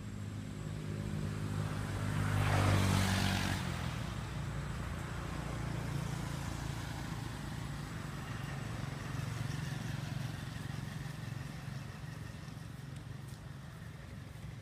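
Motor vehicle engine running on a nearby road: one vehicle passes close, loudest about three seconds in, and a steady engine hum carries on after it.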